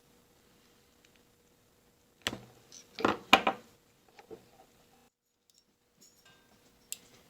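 Small tools and wire being handled at a workbench: a quick cluster of clicks and clatter about two to four seconds in, and one more click near the end, over a faint steady hum.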